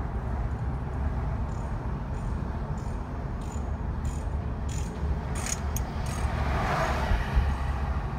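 Car driving at low speed: steady low road and engine rumble. A string of short, high ticks comes through the middle, and a brief rushing sound swells about seven seconds in.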